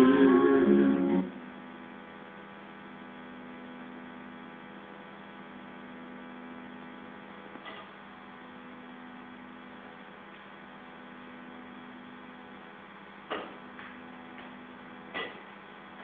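A held sung note with accompaniment cuts off about a second in, leaving a steady electrical mains hum from the sound system. A few short clicks come in the last few seconds.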